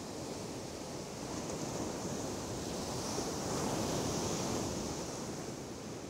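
Sea surf washing on the beach: a steady rush that swells to its loudest about four seconds in, then eases off.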